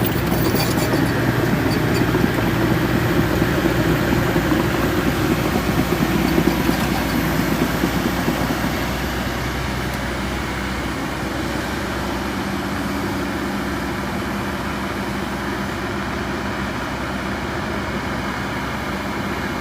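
Kobelco 220 excavator's diesel engine running, working harder for the first eight seconds or so, then easing to a steadier, quieter note.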